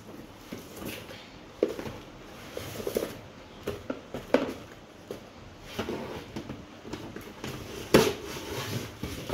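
Cardboard toy box being handled: flaps lifted and shifted, with scattered scrapes and knocks. The sharpest knocks come about a second and a half in, about four seconds in and near the end.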